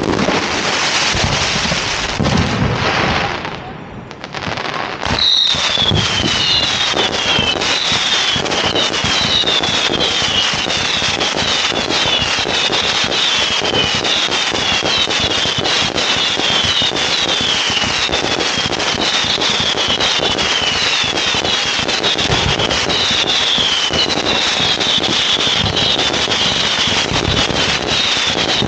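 Fireworks display at close range: bangs and dense crackling that dip briefly about four seconds in, then pick up again into continuous crackle with a rapid run of whistles, each falling in pitch, repeating over and over.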